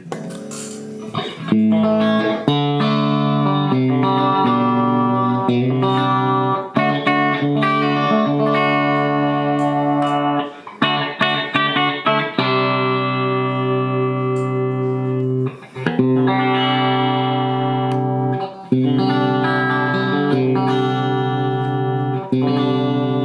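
Fender Japan ST62-50 Stratocaster electric guitar played through an amplifier: chords strummed and let ring, with single notes in between and a few short breaks.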